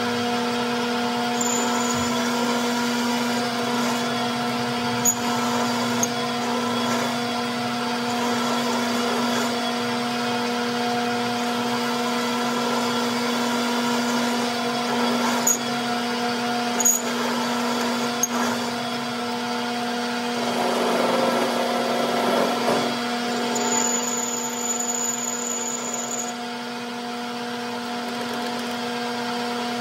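A small electric motor running steadily with an even, constant hum. A few light clicks sound through it, and there is a brief rush of noise about two-thirds of the way in.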